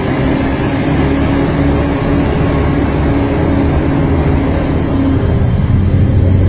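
A train's diesel engine running with a steady low drone, getting a little louder near the end.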